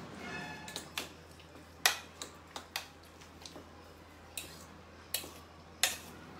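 A utensil knocking and clicking against the bowl at irregular intervals, about eight times, as mashed roasted eggplant is stirred together with salt.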